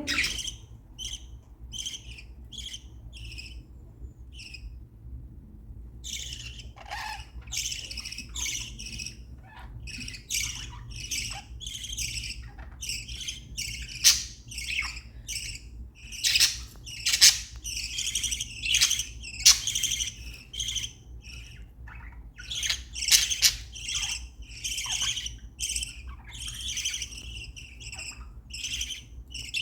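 Budgerigars chirping and chattering in quick, short, high calls, falling silent for a second or two a few seconds in, then calling more densely and more loudly.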